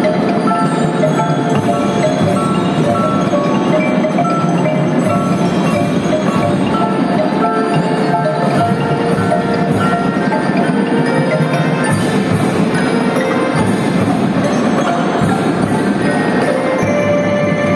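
Marching band front ensemble of marimbas and xylophones playing a quick, repeated melodic figure over fuller band and percussion music, with sharp high metallic taps recurring throughout.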